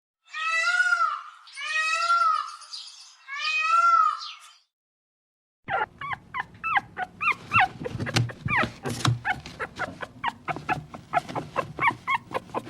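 Animal calls: three drawn-out, arched whining calls, then after a short pause a rapid run of short, falling yelps or chirps, several a second.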